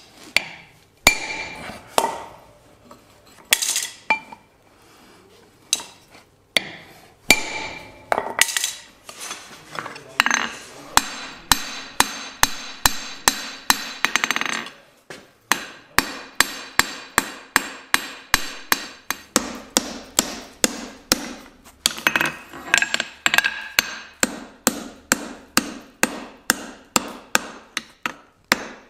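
Blacksmith's hand hammer striking red-hot steel on an anvil while forging a tong jaw: a few scattered blows at first, then from about ten seconds in a steady run of blows, roughly two or three a second.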